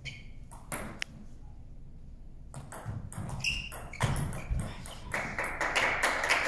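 Table tennis rally: the ball clicks sharply off the rackets and the table, a few hits at first and then quick, irregular hits from about two and a half seconds in. A louder rushing noise joins the clicks near the end.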